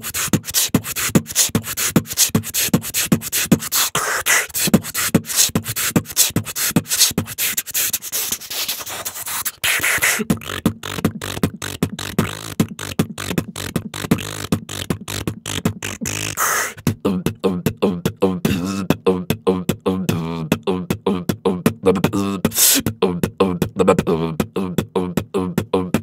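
Beatboxing: a fast run of drum-like hits and clicks made with the mouth. About 17 seconds in, a hummed low bass line comes in under the beat.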